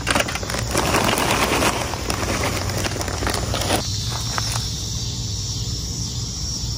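Fritos corn chips burning with a dense crackle as the fire starter catches, cutting off sharply about four seconds in.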